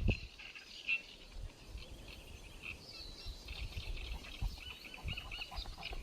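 Many short bird chirps keep coming, with a few lower arched calls joining in the second half, over a low, uneven rumble and a thump at the start.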